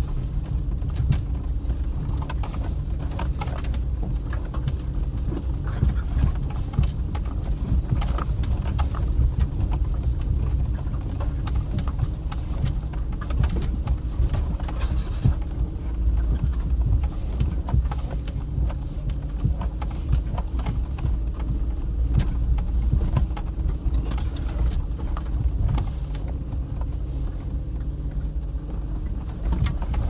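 Vehicle engine running at low revs while driving slowly over a rough forest track, with frequent rattling and knocks from the bumps.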